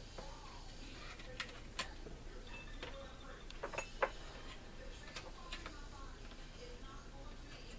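Scattered light clicks and taps of small plastic model-kit parts being handled and pressed together, irregularly spaced, with the loudest click about four seconds in.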